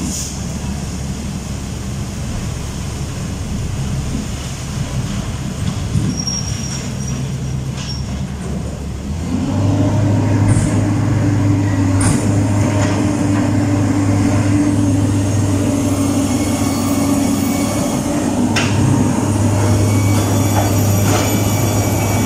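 Heavy diesel engines of a dump truck and excavator running at a fill site. A low, steady drone runs for the first nine seconds, then a louder diesel engine note comes in and holds steady at higher revs, with a few sharp clanks.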